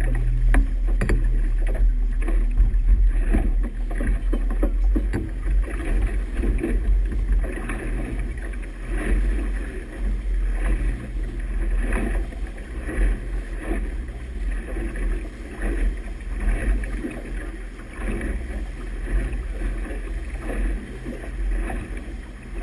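A motorboat under way: a steady low engine hum, with propeller wash churning and splashing at the stern and wind buffeting the microphone.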